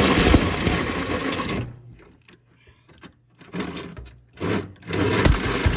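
Handheld power tool boring into the sheet-metal strut tower, run in bursts: one long run of about a second and a half, a pause, then three short runs near the end. The bit keeps catching in the metal.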